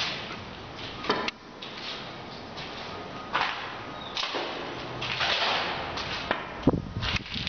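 Handling noise of a handheld camera carried while walking: a series of short swishes and rustles, a couple of sharp clicks about a second in, and low dull thumps near the end.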